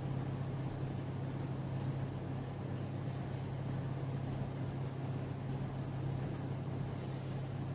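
Steady low mechanical hum of room background noise, a constant low drone with an even hiss above it.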